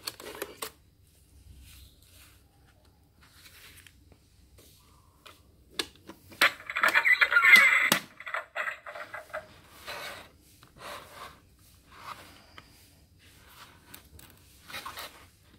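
Plastic Iron Man helmet money-box safe being handled: scattered light clicks and knocks from its plastic shell and face plate, with a louder rustling, clattering stretch about six to eight seconds in.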